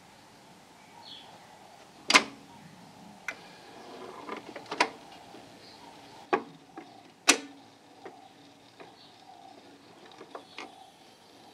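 Sansui turntable being started: sharp, irregular clicks and clunks, a few of them louder with a short ring, as the tonearm moves and the stylus is set down on the spinning record, over a faint steady hum.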